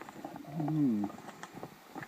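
Crunching of snowshoe steps in deep powder snow, with a short, low, wavering hum about half a second in.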